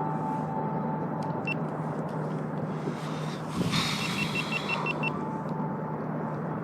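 Steady hiss with a low hum from a marine VHF radio between transmissions, with a quick run of about seven short high beeps a little past halfway.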